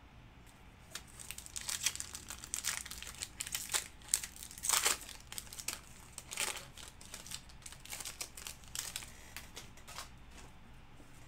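Wrapper of a Panini Chronicles football card pack being torn open and crinkled by hand: a dense run of sharp crackles that starts about a second in and dies down near the end.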